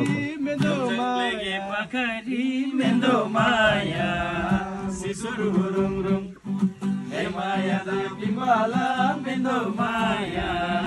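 Men singing a folk song together to an acoustic guitar played by one of them.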